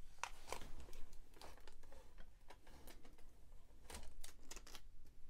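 Faint scattered clicks and light taps of a motherboard being handled, fingers touching its metal I/O shield and port connectors.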